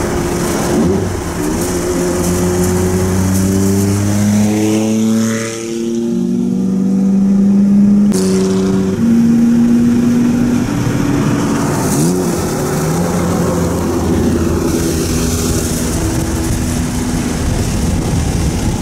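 Car driving on a wet motorway: a steady hiss of tyres and spray over the engine, with several steady tones that jump up and down in pitch. There is an abrupt cut partway through.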